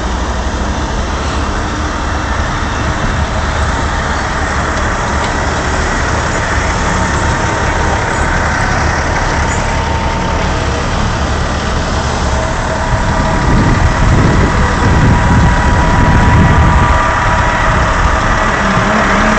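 Heavy oilfield truck diesel engines running steadily while a truck is lifted on gin poles, the engine sound swelling louder for a few seconds about two-thirds of the way through.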